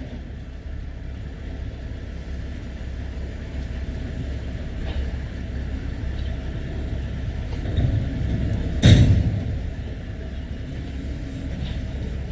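Low, steady vehicle rumble that builds gradually, with a sudden heavy thump about nine seconds in.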